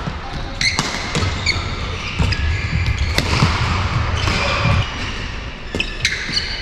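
Badminton rally: sharp racket strikes on the shuttlecock about once a second, court shoes squeaking on the court surface, and the players' footfalls thudding.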